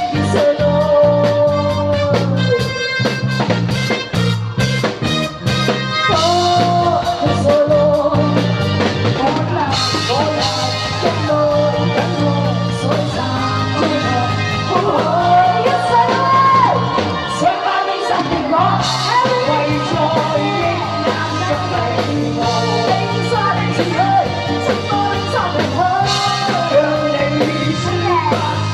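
Singing into a microphone over rock-style backing music with drums and guitar.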